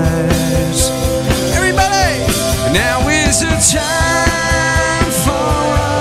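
Live rock band playing loudly: a steady drum beat with cymbal hits under electric guitars, with lines that bend up and down in pitch.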